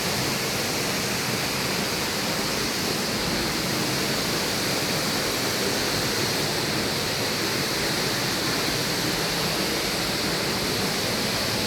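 Waterfall: the steady rush of falling water, an even, unbroken noise with no changes.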